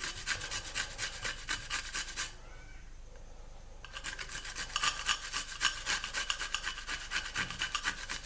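Shallots being grated on a cheese grater: quick scraping strokes, about four a second, with a break of about a second and a half a little over two seconds in.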